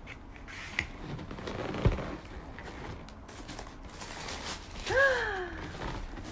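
Cardboard shoebox being handled and its lid opened: rustling and scraping of cardboard, with a thud about two seconds in. About five seconds in, a short vocal sound that rises and falls in pitch.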